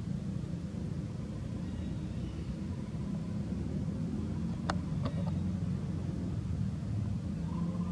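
Steady low outdoor rumble, with a few sharp clicks about five seconds in.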